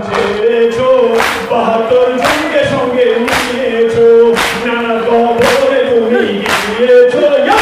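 Noha lament sung by a male reciter over a microphone with a crowd of male voices, in long held notes. Mourners' chest-beating (matam) lands in unison as sharp slaps about once a second.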